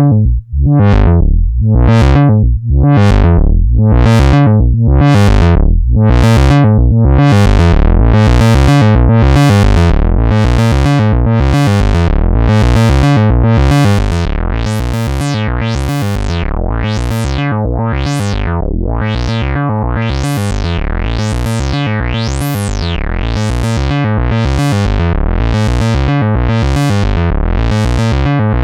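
Eurorack modular synthesizer: a Morphing Terrarium E350 oscillator run through a filter whose cutoff is swept open and closed by an LFO, about once a second, over a steady low drone. It gets slightly quieter about halfway through.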